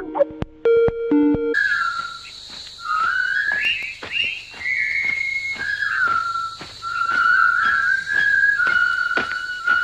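Short electronic beeping tones for the first second and a half, then a person whistling a wavering tune over a steady hiss and scattered clicks.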